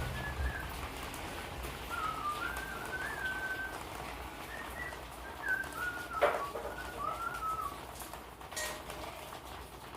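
Melodic whistling in short phrases of stepped and sliding high notes, with one sharp knock about six seconds in.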